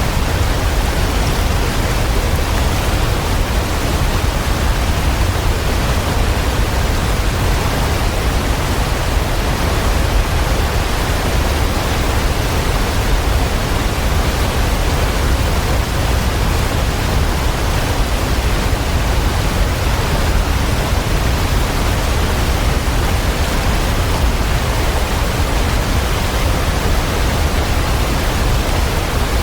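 Waterfall: a steady, unbroken rush of falling water with a deep low rumble underneath.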